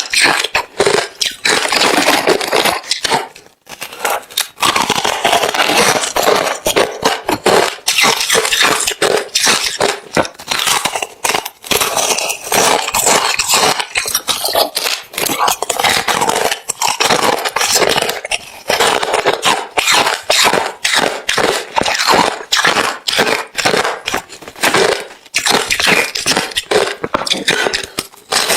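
Close-miked chewing of hard refrozen crushed ice: a dense, continuous run of sharp, crisp crunches, with a brief pause about three and a half seconds in.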